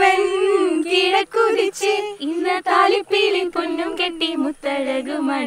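A group of young women singing a song together in unison, in held, gently wavering notes broken into short phrases.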